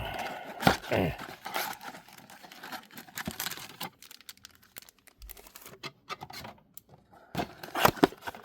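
Plastic wrapping on trading card boxes and packs crinkling and tearing as it is pulled open, in irregular sharp crackles, loudest about a second in and again near the end.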